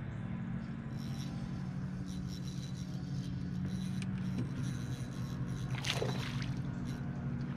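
Boat motor running with a steady low hum, its tone shifting slightly about four and a half seconds in, with a short sharp noise about six seconds in.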